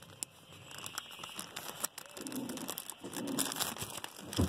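Clear plastic packaging crinkling and rustling as it is handled, with scattered small crackles and a single knock near the end.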